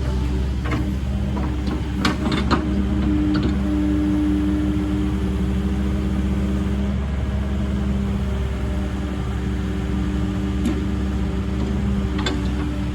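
Cat 308CR midi excavator's diesel engine running steadily, with a few sharp knocks in the first three seconds and another near the end.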